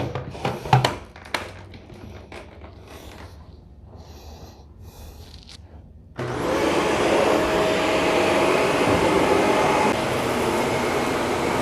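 A few clicks and knocks of handling, then about six seconds in a Shark upright vacuum cleaner switches on suddenly and runs with a steady whine.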